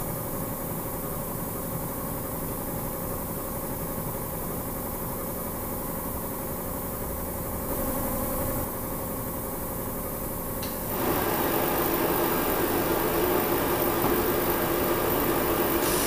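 A steady mechanical hum; about eleven seconds in a click, then a louder steady running as the waste-oil-converted diesel burner's blower starts up ahead of ignition.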